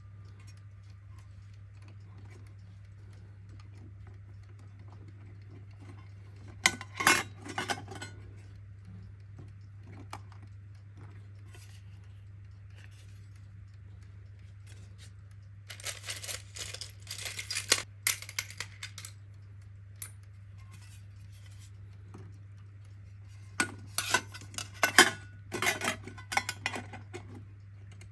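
Small metal clock parts clinking and rattling as they are handled, in three short clusters: about seven seconds in, from about sixteen to nineteen seconds, and from about twenty-four seconds to near the end. A steady low hum runs underneath.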